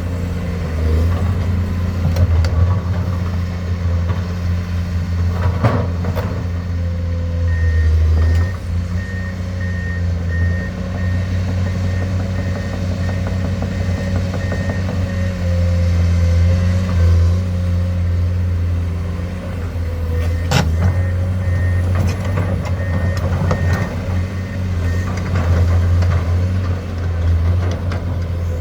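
Diesel engine of a Komatsu excavator running steadily with a deep drone under load, as heavy machinery works during truck loading. A back-up alarm beeps in an even series twice, once for about eight seconds and later for a few seconds, and two sharp clunks stand out, about six seconds in and about twenty seconds in.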